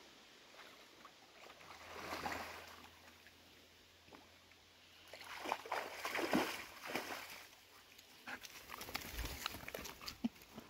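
A dog wading in a shallow pond, the water splashing and sloshing in bouts, loudest past the middle, with scattered light clicks near the end.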